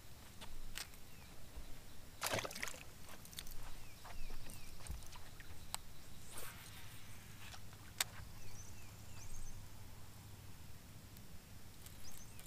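Fishing sounds on the deck of a bass boat: a brief splash about two seconds in as a small bass goes back into the water, then a second rush of noise and a few sharp clicks as the rod is cast and the reel is worked, over light lapping water and faint short chirps.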